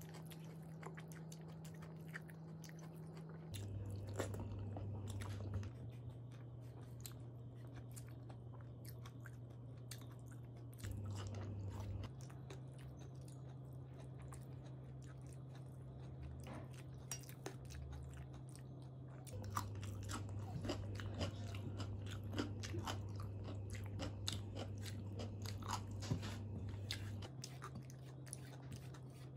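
A person chewing mouthfuls of rice, dal and fried vegetables close to the microphone, with many small crunches and wet mouth clicks, over a low steady hum that shifts in pitch a few times.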